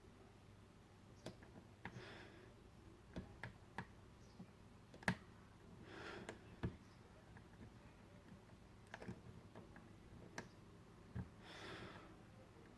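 Faint, irregular clicks of a lock pick working the pin stack of a Squire SAL/40 padlock, about ten in all with the sharpest about five seconds in, among a few soft brief rustles.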